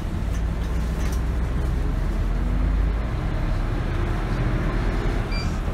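City bus engine and road noise from inside the cabin as the bus pulls away from a stop: a steady low rumble that swells in the middle, then eases.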